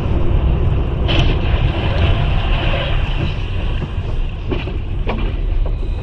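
Car driving, with the steady low rumble of engine and tyre noise heard from inside the cabin. There is a brief higher-pitched noise about a second in and a few light clicks near the end.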